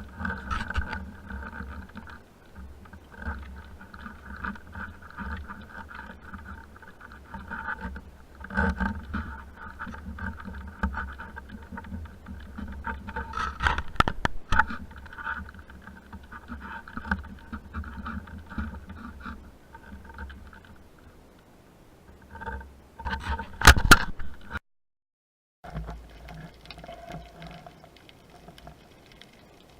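Underwater sound through an action-camera housing: a steady crackling hiss with muffled noise, broken by a few sharp clicks about halfway through and again near the end. It drops out to silence for about a second shortly before the end.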